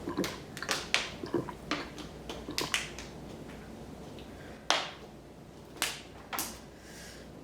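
Close-up mouth sounds of someone eating spicy instant noodles: a string of wet clicks and smacks from chewing, quick in the first few seconds, then three sharper smacks spaced about a second apart.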